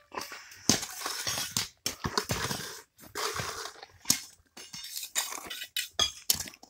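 Hand tools at work in rubble and stone: a steel trowel and digging tools scraping gravel and clinking against rocks and buckets, in a run of irregular sharp knocks and scrapes.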